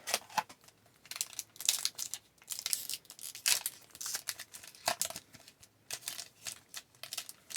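A trading-card pack's foil wrapper being torn open and crinkled by hand: a string of irregular short crackles and rips.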